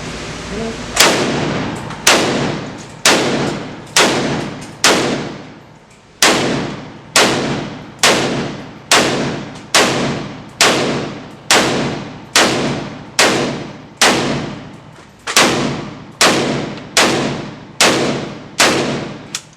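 PSA Hell Pup AK-pattern pistol in 7.62x39 firing about twenty single semi-automatic shots, roughly one a second with a short pause about five seconds in. Each shot echoes off the walls of the indoor range.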